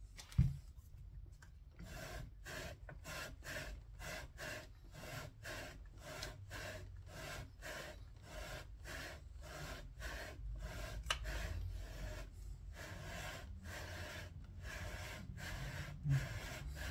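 A ring-lapping bar is slid back and forth through a rifle's scope rings, making a rhythmic scraping rub at about two strokes a second. This is the abrasive lapping that works the imperfections out of the rings so the scope lines up once mounted. A sharp knock comes about half a second in, and another near the end.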